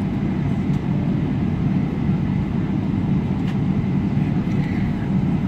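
Steady low rumble inside the cabin of a Boeing 777-300 taxiing on the ground, with the engines and cabin air running at low power. It is even and unchanging, with no surge of takeoff thrust.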